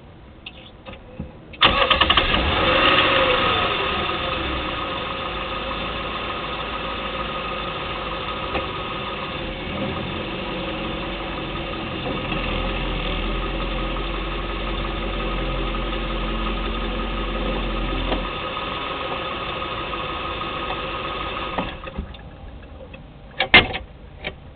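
2010 Lexus LS 460L's 4.6-litre V8 starting with a short rev flare that settles into a steady idle, then switched off near the end. A few sharp clicks follow.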